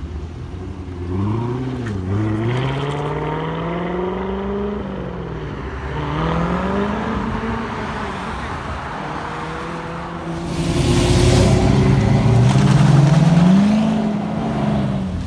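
C7 Corvette V8 exhaust accelerating away, its pitch climbing and dropping back several times as it shifts up through the gears. About ten seconds in, a C6 Corvette's V8 exhaust takes over, louder, revving as it pulls away.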